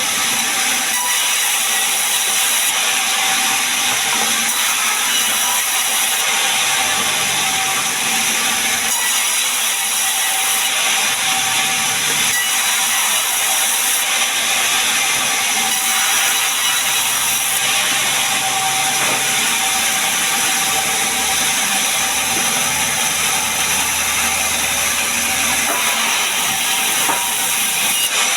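Sawmill saw cutting gmelina wood into boards: a steady, unbroken whine and hiss of the blade running through the timber.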